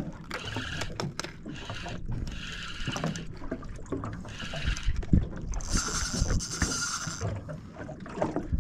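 Water splashing and sloshing around a small fishing boat, with scattered knocks and an uneven, noisy sound.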